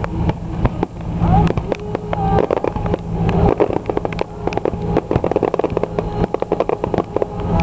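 Fireworks going off: a rapid run of bangs and crackling that grows densest in the middle, over a steady low hum.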